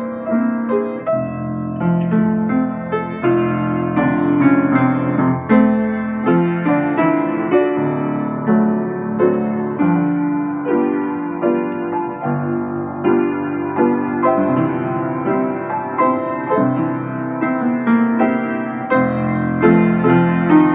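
Piano playing a tune in full chords, with note attacks at an even pulse.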